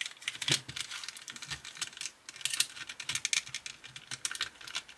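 Small, irregular clicks and taps of plastic and metal parts of a die-cast model car as they are handled and pressed into place on its chassis.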